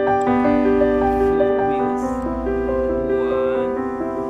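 Background music: a gentle keyboard melody of held notes, piano-like in tone.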